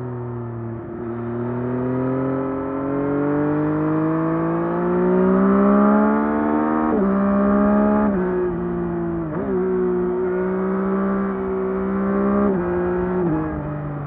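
A 2024 Yamaha MT-09 SP's 890 cc inline-three engine with its stock exhaust, pulling steadily up through the revs for about six seconds. It then goes through three quick upshifts about a second apart, each a sudden drop in pitch, and settles to a steady cruise with two smaller steps down in pitch near the end.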